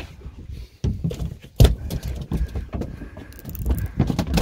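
A conventional fishing reel being cranked against a hooked tuna: irregular clicks and knocks from the reel and rod handling, over a low rumble, with a faint steady whine in the second half.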